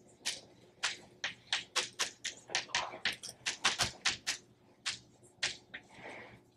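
Chalk on a blackboard: a quick, irregular run of short taps and scrapes, about three a second, as words are written.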